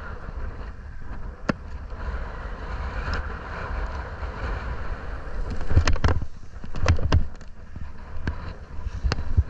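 Wind buffeting the microphone over a steady low rumble, with several heavy thumps about six and seven seconds in and a few sharp knocks.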